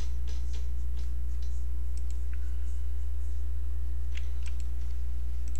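Steady low electrical hum with a dozen faint, irregular clicks of a computer mouse over it, a few bunched together about four seconds in.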